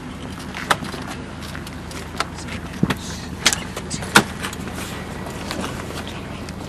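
A vehicle engine idling with a steady low rumble, with about half a dozen sharp clicks and knocks of equipment being handled; the loudest knock comes a little past four seconds in.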